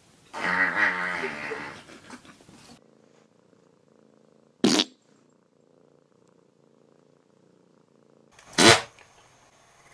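A cat's long, wavering yowl lasting about two and a half seconds, followed by two short, sharp bursts of noise, one in the middle and a louder one near the end.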